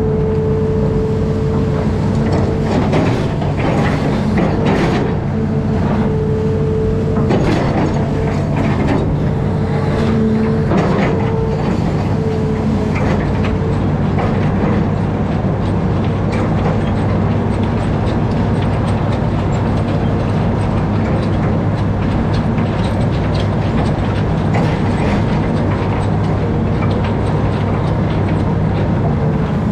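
Amphibious excavator's diesel engine running steadily, with a whine that cuts in and out and clanking knocks during the first half.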